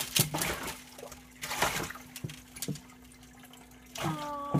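Water splashing and sloshing in a glass aquarium as a young American alligator thrashes with a mouse in its jaws, in irregular bursts with sharp slaps. Near the end a short pitched vocal sound rises slightly.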